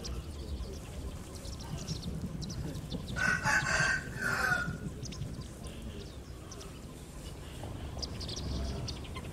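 A rooster crowing once, a call of about a second and a half beginning about three seconds in, over a steady low background rumble with a few faint bird chirps.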